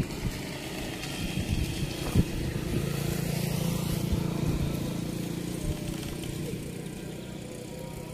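A motor vehicle's engine passes by on the road, swelling to its loudest a few seconds in and then slowly fading away. A few knocks come in the first two seconds.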